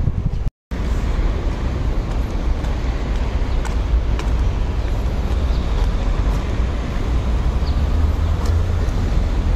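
Road traffic noise, a steady dense rumble with heavy low-end, from the elevated highway ahead. The sound cuts out for a split second just after the start.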